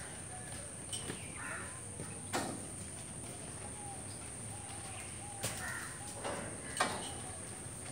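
Horses' hooves knocking on the ground now and then, with faint bird calls.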